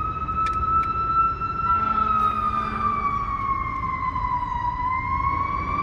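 Emergency vehicle siren wailing in the distance: one long tone that slowly falls in pitch about halfway through and climbs back near the end, over a low background rumble.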